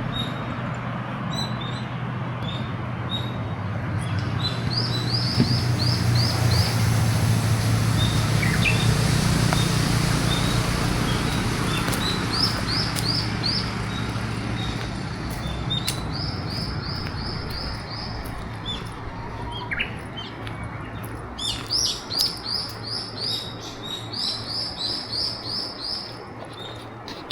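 Songbirds singing, repeating short phrases of quick high notes over and over, with a low steady rumble that swells and then fades during the first half.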